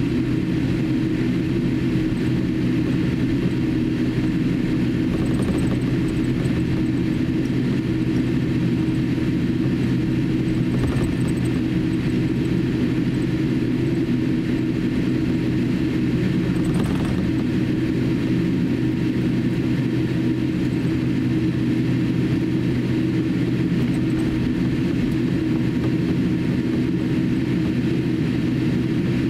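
Cabin noise of a Boeing 787-8 airliner taxiing: a steady engine hum with cabin air rush, and three faint clicks along the way.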